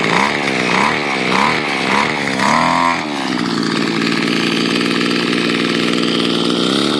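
Small two-stroke string-trimmer engine powering a homemade RC car. It is blipped up and down about five times in quick succession, with a bigger rev near three seconds in, then settles to a steady run.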